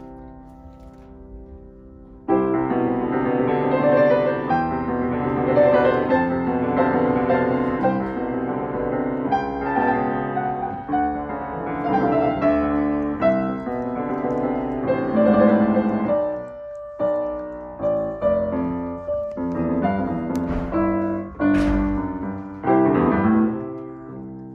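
Steinway & Sons grand piano being played. Notes die away for the first two seconds, then a loud passage of full chords and runs starts, and in the last third it breaks into separate loud chords with short pauses between them.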